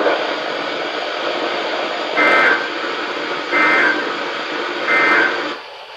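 NOAA Weather Radio receiver playing steady static hiss, broken by three short shrill data bursts about a second and a half apart. These are the SAME end-of-message code that closes the tornado warning broadcast. The hiss drops away near the end.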